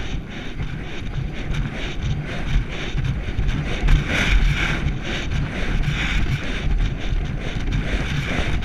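Wind buffeting the microphone of a rider galloping a racehorse, over the rhythmic low thudding of the horse's hooves striking the dirt track at the gallop.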